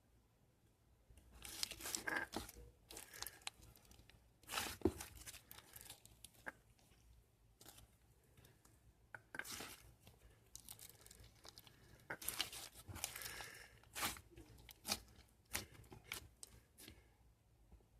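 Tearing and crinkling in short bursts about a second long, several times over, with small clicks and rustles between them.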